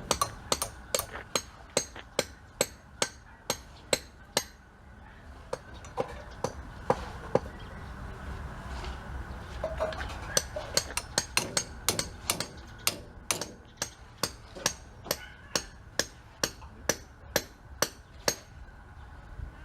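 Hammer blows chipping out a concrete hollow block wall for door openings: sharp, regular strikes about two a second. They thin out to a few scattered blows in the middle, then resume in a faster steady run.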